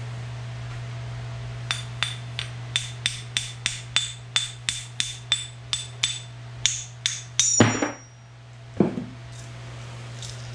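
Hammer striking metal, about eighteen sharp ringing blows at roughly three a second, typical of driving a bearing race or bearing home during a rear differential rebuild, then a heavier clank and one more knock. A steady low hum runs underneath.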